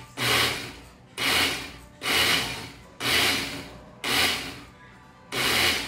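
Countertop blender pulsed six times, about once a second: each press gives a short burst of the motor running and the blade churning a milky rice, milk and cinnamon mixture, with quiet gaps between.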